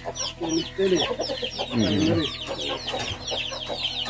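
Fighting-breed chickens clucking, with a couple of louder, lower calls about half a second and two seconds in, over a rapid high-pitched cheeping that goes on throughout.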